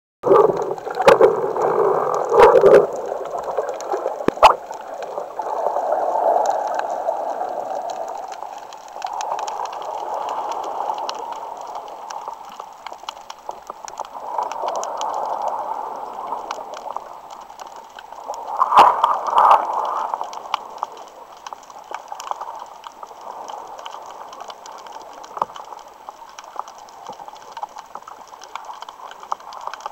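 Muffled underwater water noise heard through a camera's waterproof housing as a spearfisher dives and swims along a rocky reef, with louder gurgling in the first few seconds and again briefly about two-thirds through, and scattered faint clicks.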